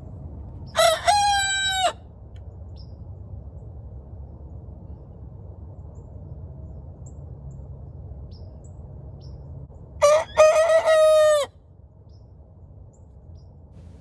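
Rooster crowing twice: a shorter crow about a second in and a longer one about ten seconds in, over a low steady background hum.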